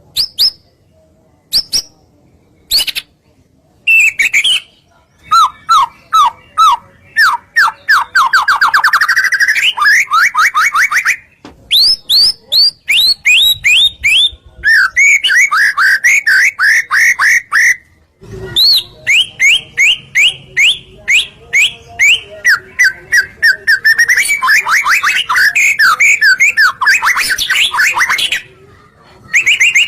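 White-rumped shama (murai batu) singing: a few scattered notes at first, then long runs of rapid, repeated whistled notes and trills, broken by a few short pauses.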